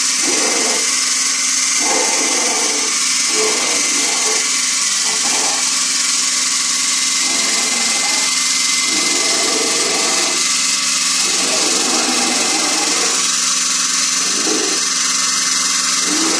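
Small electric motors whirring steadily, a continuous mechanical hiss with a faint high tone held through it.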